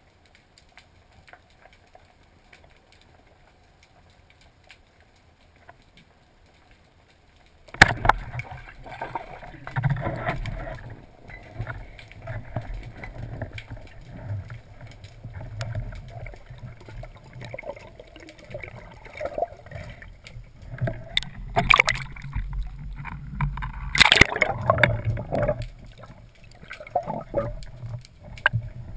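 Underwater, a band-powered speargun fires with a sharp crack about eight seconds in, the shot that spears a sea bass. Water sloshing and bubbling follow, with knocking and scraping as the shooting line is hauled in, and louder bursts near the end.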